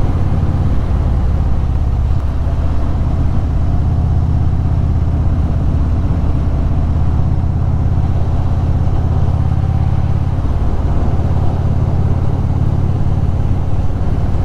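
Indian Super Chief Limited's V-twin engine running steadily under way, heard from the rider's position with road and wind noise over it.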